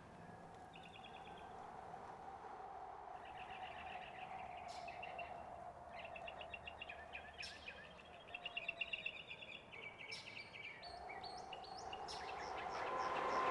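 Small birds chirping in quick repeated trills over a faint steady hum. In the last second or two the noise of an approaching train swells.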